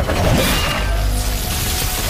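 Dramatic TV score with a sudden crash-like sound effect at the start as an energy blast strikes, over a deep rumble.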